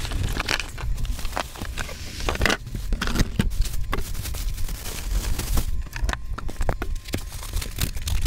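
Packaging being handled fast: polystyrene foam blocks, a plastic bag and cardboard flaps scraping, crackling and crinkling in a dense, hurried run of short noises, the footage sped up eight times.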